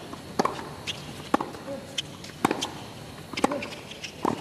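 Tennis rally on a hard court: the ball struck back and forth by racquets and bouncing on the court, a string of sharp pops about every half second to a second.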